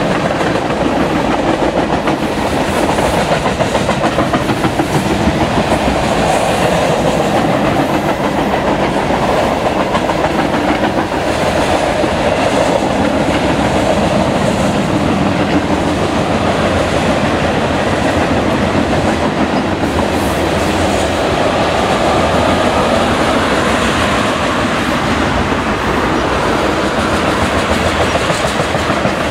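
Freight train cars rolling past, a steady loud rumble with the wheels clicking over the rail joints.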